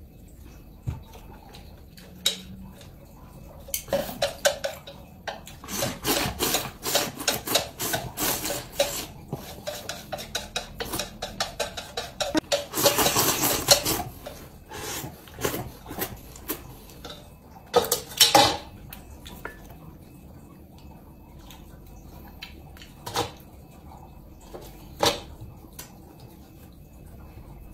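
Chopsticks clicking and scraping on a ceramic plate as noodles are eaten, in quick runs of sharp clicks. About halfway through comes a loud slurp lasting about a second and a half as the noodles are sucked straight from the plate, followed by a few scattered knocks of tableware.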